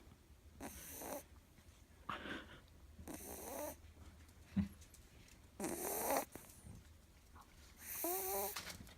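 Miniature schnauzer puppy snoring in her sleep: about five snoring breaths a second or two apart, some with a squeaky pitched tone. There is a short low thump about halfway through.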